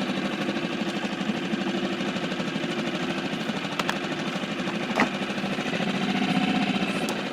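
Small outboard motor on an inflatable boat running steadily, heard close up through the motor itself, with a quick rapid pulsing. A sharp click about five seconds in.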